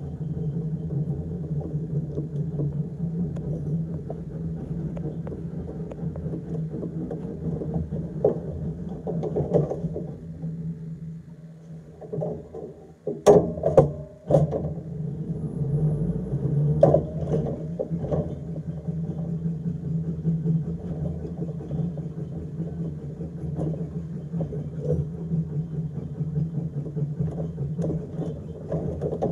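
Electric tram running at low speed: a steady low hum. About halfway through, the hum sinks briefly, then comes a cluster of several loud knocks and clunks.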